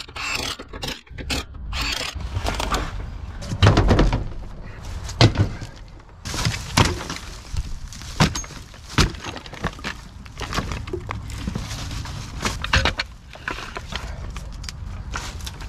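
Cordless impact wrench rattling on a boat trailer wheel's lug nuts for the first couple of seconds, then a series of heavy wooden knocks and scrapes as wood blocks and a floor jack are set under the trailer. The loudest knock comes about four seconds in, and the jack is pumped near the end.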